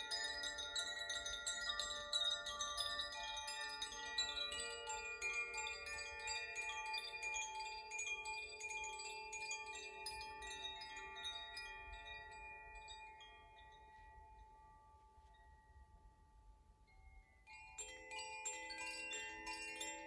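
Koshi and Zaphir chimes rung by hand: many overlapping tuned tones from their clappers striking the inner rods, ringing on with a long shimmering decay. The ringing dies away gradually through the middle, and about three-quarters of the way through a new pair of chimes is set ringing.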